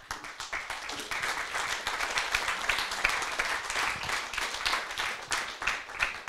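Audience applauding; the clapping starts abruptly and keeps up steadily.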